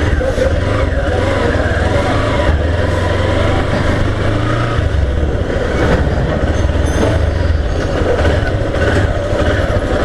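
Motorcycle engine running steadily as the bike is ridden slowly, heard through an external microphone inside the rider's helmet.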